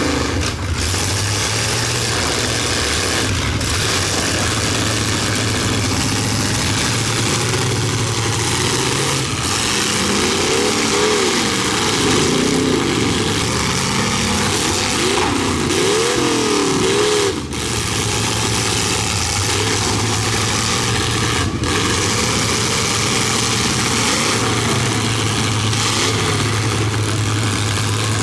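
Demolition derby cars' engines running and revving in an arena, their pitch rising and falling repeatedly for several seconds around the middle.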